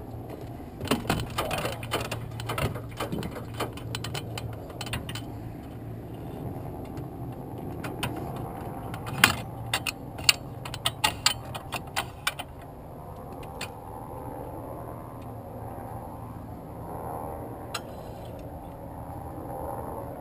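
Sharp metallic clicks and rattles of a passenger's seat-harness buckles and cockpit fittings being fastened in an open-cockpit biplane, in two bursts, the second ending about twelve seconds in, over a steady low hum.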